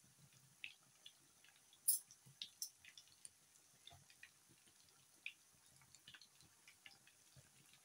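Batter-coated chicken wings frying in hot oil in a pan: faint, scattered crackles and pops from the bubbling oil, the loudest about two seconds in.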